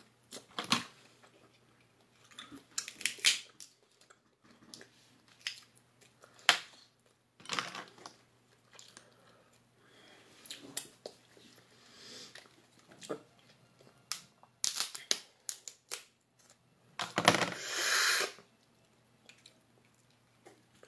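Cooked lobster shell being cracked and pulled apart by hand: scattered cracks, snaps and tearing sounds, with chewing between them. A longer, louder noisy stretch comes near the end.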